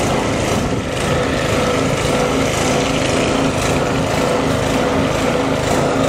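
Small engine-driven transfer pump running steadily, sucking maple sap out of a collection tank through a hose.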